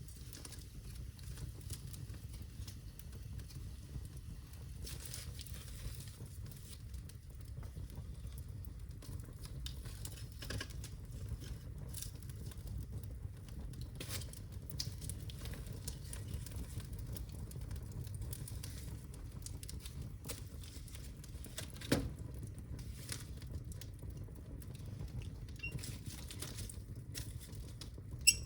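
Birch logs burning in a fireplace: a steady low rumble of flame with scattered crackles and pops, one sharp pop about two-thirds of the way through and another near the end.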